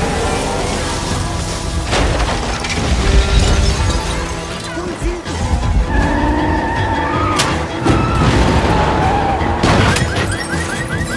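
Disaster-film soundtrack: dramatic music mixed with crashing and shattering destruction and car noise, with heavy impacts about two seconds in and again near the end.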